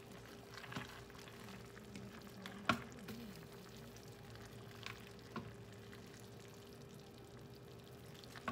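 Metal tongs and a utensil working through a cooked pork shoulder roast in a slow cooker's crock, the meat pulling apart, with a few sharp clicks as the tongs knock the crock, the loudest about a third of the way in. A steady low hum runs underneath.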